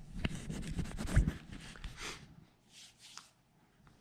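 Fingers rubbing and tapping on a phone held close to its microphone as it is handled, a run of scrapes and small knocks that dies away after about two and a half seconds.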